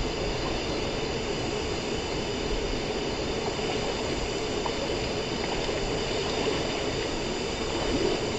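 Waterfall: steady rushing of falling water, an even noise with no breaks.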